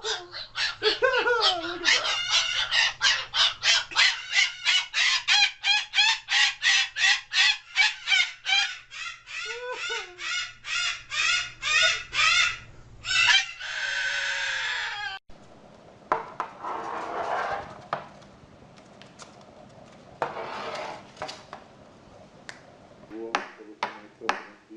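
A parrot calling over and over, about three sharp pitched calls a second, ending in a harsh screech over a second long. About fifteen seconds in the sound cuts to a much quieter stretch of scattered clicks and faint voices.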